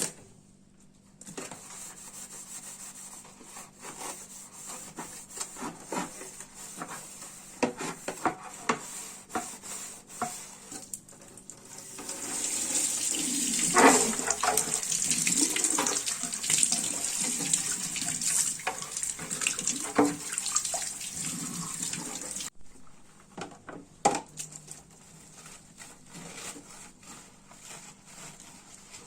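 Water running from a tap into a sink, with clinks and knocks of items being handled and washed. The flow gets louder about twelve seconds in, cuts off sharply about twenty-two seconds in, and light clinks and knocks follow.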